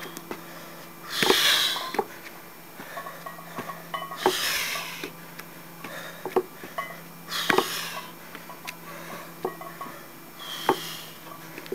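A man breathing hard with four forceful breaths about three seconds apart, once for each step-up under a 155 lb barbell. Between them come short knocks and light clinks from his feet on the wooden step and the loaded bar.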